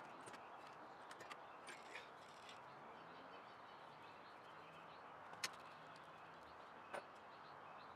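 Near silence: a faint steady background hiss with a few faint bird chirps, and two sharp clicks about five and a half and seven seconds in.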